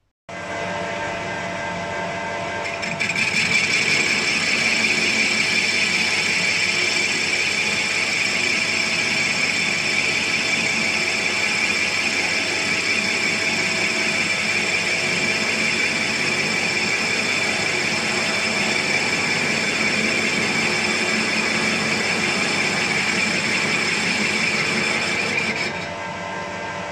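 Metal lathe starting up and running steadily, and from about three seconds in taking a facing cut across the rusty face of a gear blank in the chuck: a high, grainy cutting noise over the steady hum of the machine. The cut ends about a second before the end, leaving the lathe running on its own.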